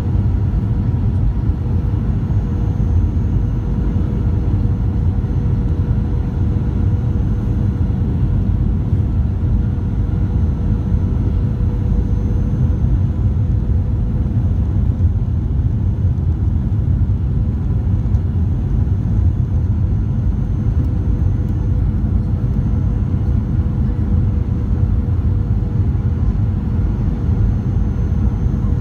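Inside the cabin of a jet airliner on final approach: the steady low rumble of the underwing jet engine and rushing air, with a faint steady hum running through it.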